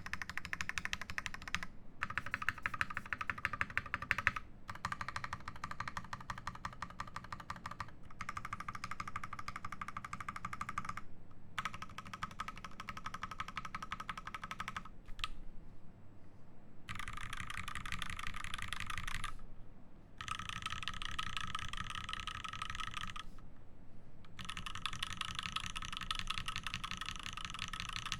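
Fast typing on a mechanical keyboard with lubed Gateron Ink Black V2 linear switches in a brass plate, keystrokes clacking in runs of a few seconds with short pauses between.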